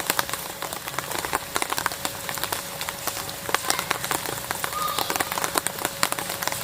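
Rain falling: a steady hiss with many drops tapping irregularly on a nearby surface.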